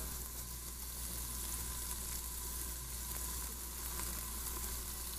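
Onion and mushrooms sweating in olive oil in a stainless soup pot: a faint, steady sizzle.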